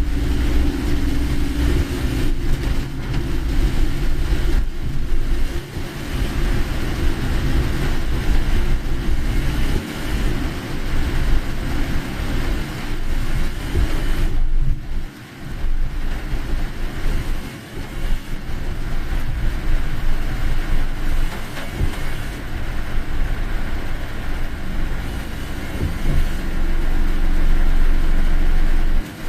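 A car driving in heavy typhoon rain, heard from inside the cabin: a steady low road and engine rumble under an even hiss of rain and tyre spray. The sound dips briefly about halfway through.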